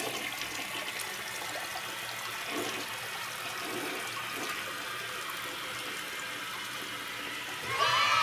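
Toilet flushing: water rushing and swirling in the bowl as it carries a load of french fries down the drain. Near the end a louder sound with a steady tone comes in.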